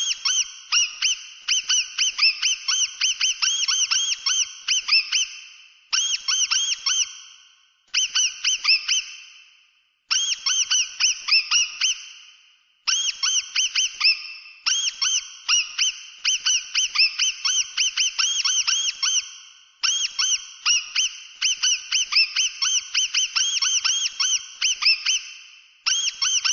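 Mouse squeaking: rapid, high-pitched chirping squeaks, many a second, in runs of one to several seconds separated by short breaks.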